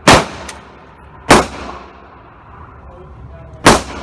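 Three gunshots echoing on an indoor range, the second about a second after the first and the third about two seconds later, each followed by a short reverberant tail.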